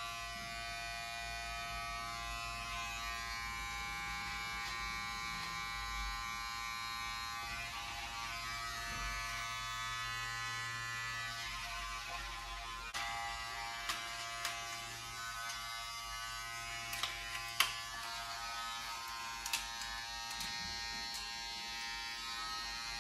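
Electric hair clippers running with a steady buzz, with a few sharp clicks in the second half.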